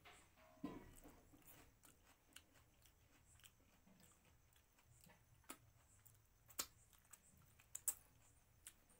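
Close, quiet eating sounds from a person eating with the fingers: soft chewing with a scatter of sharp mouth clicks and lip smacks, the loudest two coming in the last few seconds.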